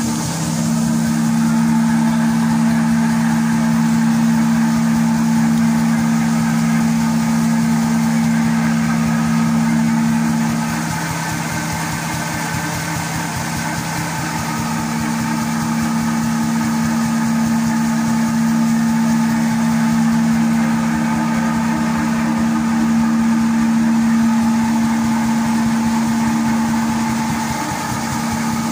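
Fiber cement board making machine running: a steady mechanical hum of two low tones from its drives and rollers. The higher tone drops out for a few seconds about eleven seconds in, then returns.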